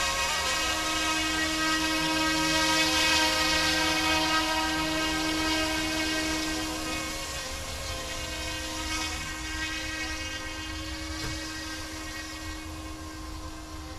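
Small electric RC scale helicopter (UXIANG F09-S UH-60 Blackhawk) hovering: a steady, high, whirring whine from its motor and rotor. It is loudest a few seconds in and grows fainter over the second half.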